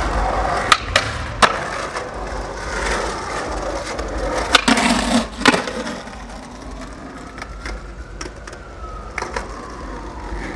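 Skateboard wheels rolling on asphalt with sharp clacks of the board, three in the first second and a half and a louder cluster about five seconds in.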